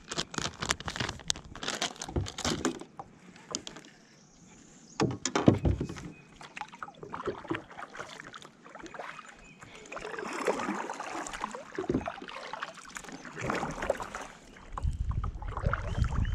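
Plastic bag of Zoom soft-plastic worms crinkling and rustling in the first few seconds, a loud knock about five seconds in, then a kayak paddle dipping and splashing in the water.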